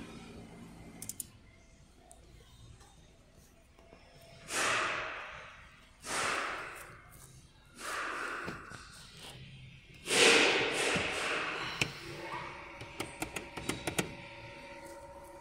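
Four short rushing swells of noise, then a quick run of light plastic clicks as the overhead roof-console switches and sun visor are worked, over a faint steady hum.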